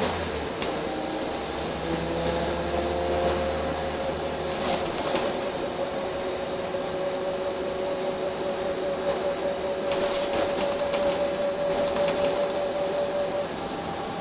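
Wright Eclipse single-deck bus heard from inside the passenger saloon, its engine and drivetrain running under way. A whine climbs slowly in pitch for the first few seconds, then holds steady over road noise, with light clicks and rattles of fittings in the second half.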